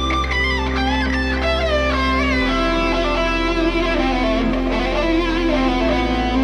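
Background music with a guitar-led melody of sliding notes over held bass notes, which shift about two and a half seconds in and again near the end.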